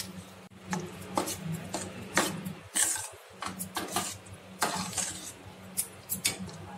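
Perforated steel spatula stirring wet vegetable bhaji in a stainless steel kadai, with irregular scrapes and clinks of metal on metal about twice a second, over a low steady hum.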